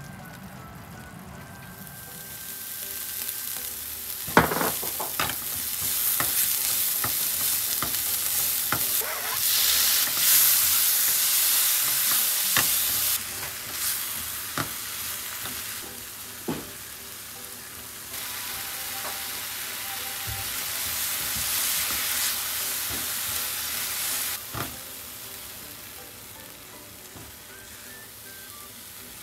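Food sizzling as it fries in a pan, stirred with a utensil that knocks against the pan now and then. The sizzle swells twice, about ten and about twenty seconds in, then dies down near the end.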